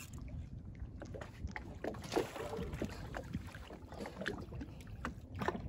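Water lapping and slapping against a small boat's hull, with a few brief splashy knocks and a low wind rumble on the microphone.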